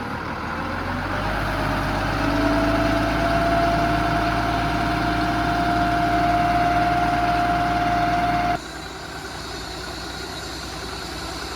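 Heavy machine's engine running steadily, with a whine that climbs slowly in pitch for several seconds. About eight and a half seconds in, the sound cuts abruptly to a quieter, even engine sound.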